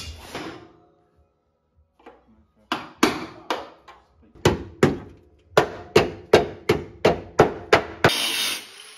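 Hammer blows on the steel bodywork of a rally car's wheel arch: about a dozen sharp strikes starting a few seconds in, falling into an even rhythm of about three a second before stopping abruptly.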